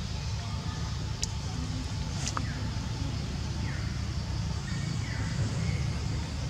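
Outdoor background noise: a steady low rumble, with a few faint sharp clicks and two short, faint falling chirps in the second half.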